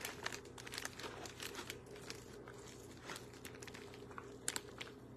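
Plastic fork shredding cooked chicken: faint, irregular little scrapes, clicks and tearing sounds.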